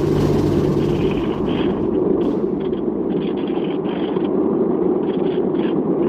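Steady rushing rumble of airflow and motor, picked up by a camera riding on an RC model airplane in flight.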